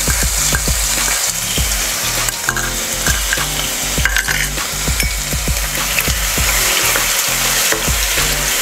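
Garlic paste sizzling and bubbling in hot oil with tempered mustard and cumin seeds in a non-stick kadai, with light clicks and scrapes of a spatula stirring it.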